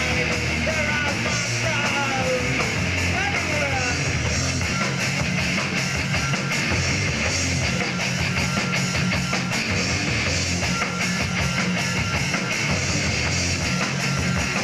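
Live rock band playing: electric guitars, bass and drums, with sliding notes in the first few seconds.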